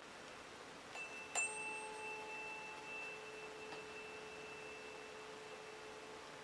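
A 432 Hz tuning fork is struck twice about a second in, the second tap sharper, then rings with a steady tone. Its high metallic overtones die away within a couple of seconds while the low hum carries on.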